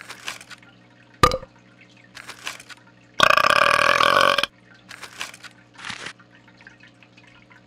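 A cartoon fish's long, loud burp, starting about three seconds in and lasting over a second. Before it come a few short, quiet slurps of bubble tea through a straw.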